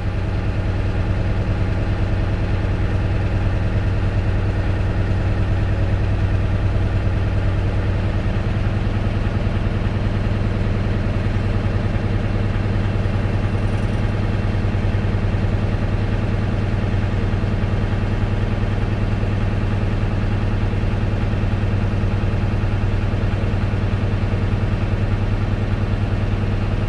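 Tractor-trailer diesel engine running steadily at a raised idle, held below 1200 RPM, while its air compressor builds brake air pressure toward governor cutout.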